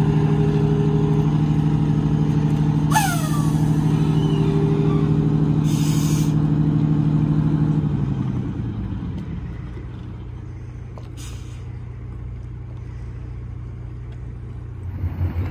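A large engine runs steadily at idle, then fades to a low rumble about eight seconds in. Two short, sharp hisses of air cut in around three and six seconds, the first with a brief falling squeal, from the tow bus's air brakes.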